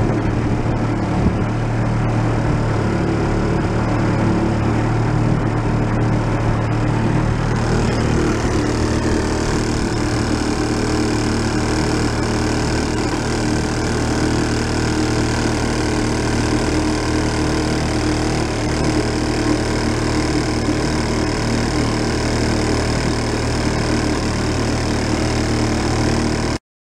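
1937 Sears Waterwitch 2.5 hp two-stroke outboard motor running steadily under way, pushing a small boat along with its wake splashing behind it.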